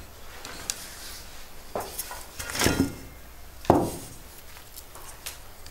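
Handling sounds at a table: a wooden chair moved as someone sits down, and a few knocks and scrapes of metal bowls, with small clicks of green beans being snapped by hand. The three loudest knocks come around the middle.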